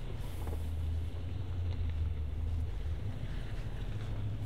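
The Nissan Patrol's naturally aspirated 5.6-litre V8 pulls under steady throttle in low range as the four-wheel drive climbs a slippery dirt hill: a steady low drone of engine and drivetrain.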